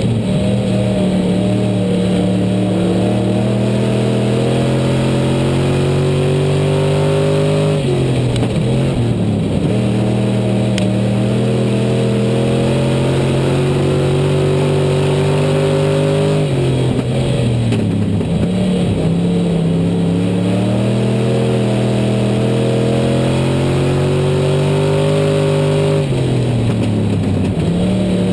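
IMCA Southern Sportmod dirt-track race car's V8 engine, heard from on board at racing speed. The pitch climbs steadily down each straight, then drops sharply as the throttle lifts for a turn, about eight, sixteen and twenty-six seconds in, before climbing again.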